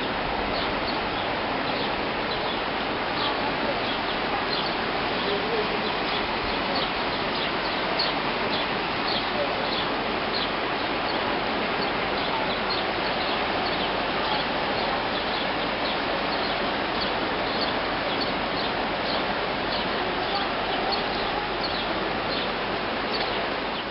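Steady rush of flowing floodwater, with small birds chirping many times throughout in short, high chirps.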